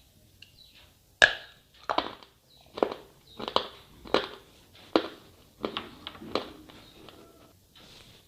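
Slate pencil bitten through with one sharp, loud snap about a second in, then chewed in a steady run of about seven crunches, roughly one every 0.7 seconds.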